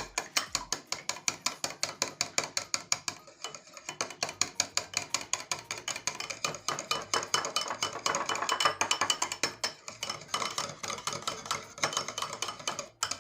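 Hand whisk beating yogurt and a little milk together in a bowl: fast, regular strokes clicking against the bowl, about four or five a second, with a short pause near the end.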